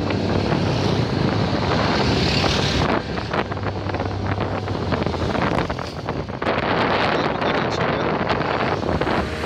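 Wind rushing over the microphone of a motorcycle rider on the move, with vehicle noise underneath. The wind crackles and buffets harder over the last few seconds.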